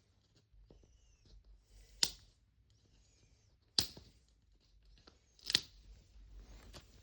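Plastic wrapping of a Mini Brands capsule ball being worked open: three sharp clicks, roughly two seconds apart, with faint plastic crinkling between them.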